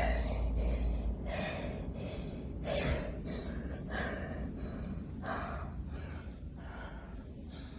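A person breathing hard and gasping, winded after a short sprint: about six heavy breaths, one every second or so, growing slightly quieter toward the end.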